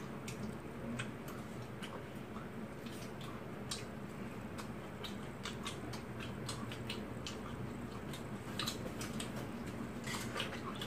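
Chopsticks and spoons clicking lightly against bowls and plates during a meal, scattered small clicks that come more often near the end, over a low steady room hum.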